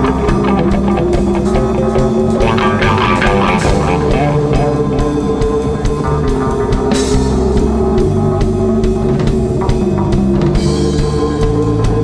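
Psychedelic rock music: electric guitars and bass over a drum kit playing a steady beat.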